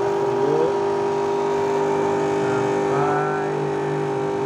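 Electric disinfectant fogging machine running with a steady buzzing hum while water is flushed through it as fog to clean it.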